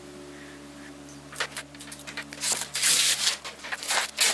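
Protective plastic film being peeled off the casing of a new electric die-cutting machine: rapid crackling and rustling that starts about a second and a half in and grows louder.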